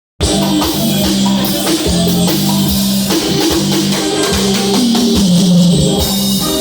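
Live band playing an instrumental passage during a soundcheck: drum kit and guitar over sustained low notes with a steady beat, starting abruptly right at the start.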